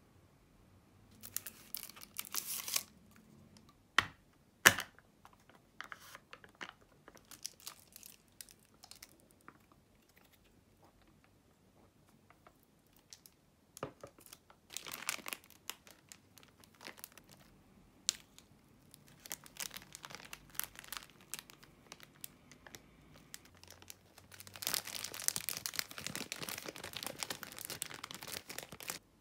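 Plastic packaging being handled: rustling as a drink straw is unwrapped and pushed into a plastic cup's sealed lid, with two sharp snaps about four seconds in. Near the end, a convenience-store rice ball's plastic film wrapper is torn open with a few seconds of dense crinkling.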